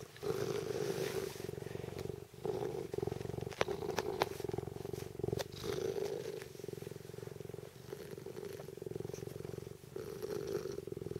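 Tonkinese cat purring right up against the microphone. The purr swells and fades in waves with its breathing, with a few sharp clicks about four to five seconds in.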